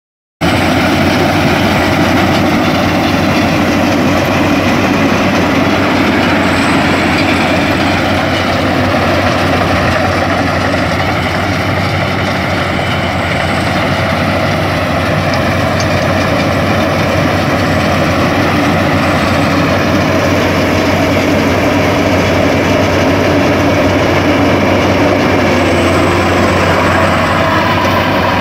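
Rice combine harvester running, its engine and harvesting machinery making a loud, steady drone with a low hum underneath.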